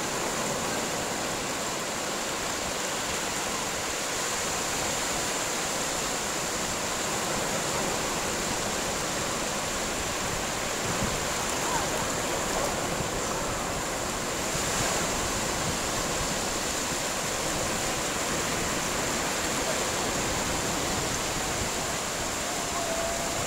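Sea waves washing in, a steady even rush of surf with no distinct breaks.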